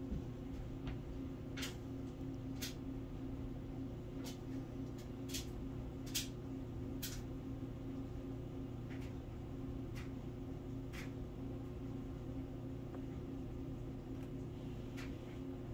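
Cats' claws and paws clicking and tapping on a hardwood floor as they scuffle, a scattering of short sharp clicks over a steady low hum.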